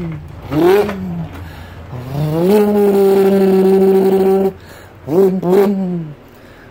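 A man's voice imitating a race car for the ride: short rising-and-falling engine revs, then one long held note of about two seconds, and two more quick revs near the end.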